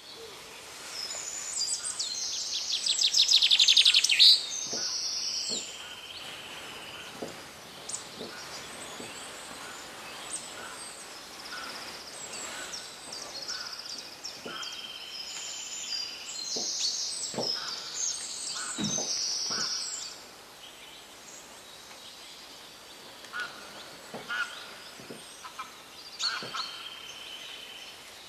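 Birdsong: several birds chirping and trilling on and off, with a loud, fast trill about two to four seconds in.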